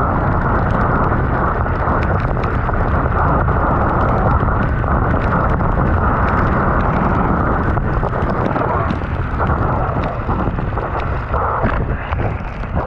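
Heavy wind buffeting an action camera's microphone as a mountain bike speeds down a gravel road, mixed with the rumble and crackle of knobby tyres rolling over wet gravel. The noise is loud and steady, easing slightly near the end.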